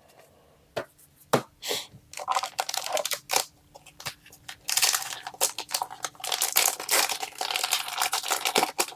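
Foil booster-pack wrapper being torn open and crinkled by hand. Short crackling rips come first, then longer stretches of dense crinkling from about two seconds in.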